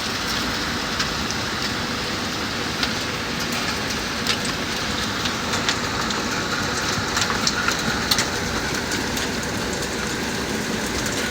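Hail falling with rain: a steady hiss of rain with many sharp ticks of hailstones striking hard surfaces, coming thicker in the second half.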